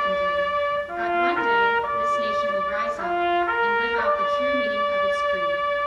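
Mixed choir singing a slow, held melody in full voice, the notes changing about once a second.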